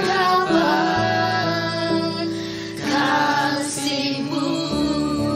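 Worship song: a woman's voice singing over sustained instrumental chords, the chords changing about a second in and again near the end.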